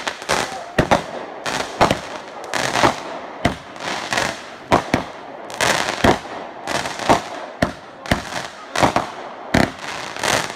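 Aerial fireworks going off in a rapid series of sharp bangs, about two a second. Some bangs are followed by a brief rushing hiss.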